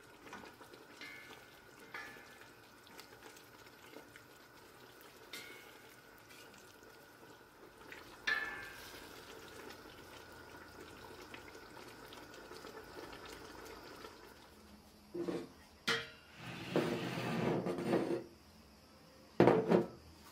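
Wooden spoon stirring chopped cucumbers and peppers in a stainless steel pot, with soft wet scraping and an occasional tap on the pot. Over the last few seconds come louder knocks and sliding as empty glass jars are set down and moved on a wooden table, the loudest knock just before the end.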